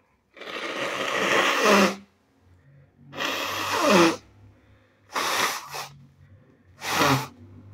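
A person with sinusitis blowing a congested nose hard, four times in a row. The first blow is the longest at nearly two seconds, and each ends in a short falling honk.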